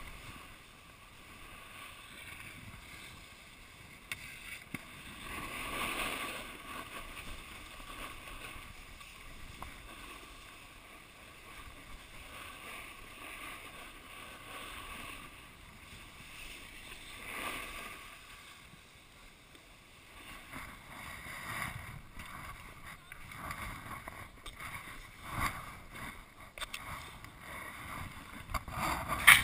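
Snowboard sliding and scraping over packed snow, a steady hiss that swells as the board turns, around six and seventeen seconds in, and gets choppier near the end.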